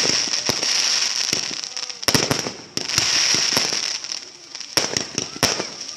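Fireworks going off: a rapid string of sharp bangs and pops over continuous crackling and a steady high hiss. The crackling is densest at the start and again about three seconds in, with scattered loud pops toward the end.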